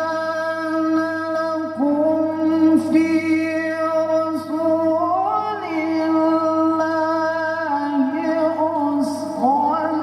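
A man reciting the Qur'an in melodic tilawah style, holding long ornamented notes that step up in pitch a couple of times and slide down near the end.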